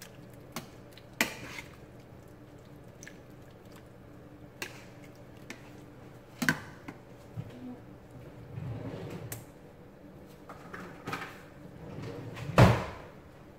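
Metal tongs clinking and scraping against a stainless steel pot while stirring a thick cream sauce, with scattered separate clicks and one louder clank near the end.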